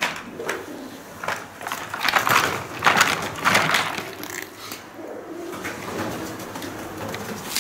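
Pigeons cooing with low, drawn-out calls, mostly in the second half. Louder crunching and rustling of footsteps on loose debris comes from about two to four seconds in.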